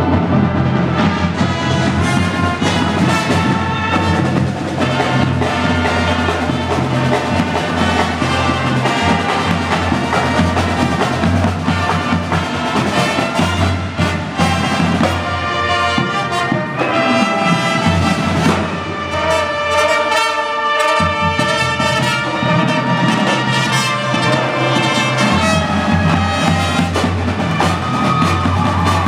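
A student marching band playing live: sousaphones, trumpets and other brass over marching drums, in a gymnasium.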